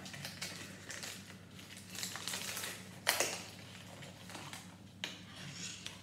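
Small cardboard toy box and plastic packaging being handled: light, scattered clicks, rustles and crinkles, with a sharper tap about three seconds in.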